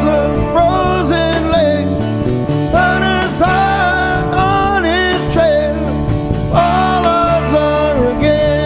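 Live band playing a rock song: a man sings phrases over a Fender Telecaster electric guitar, an acoustic guitar and drums.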